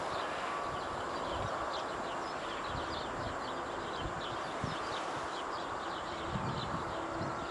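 Small birds chirping in quick repeated calls, over a low, uneven rumble of wind.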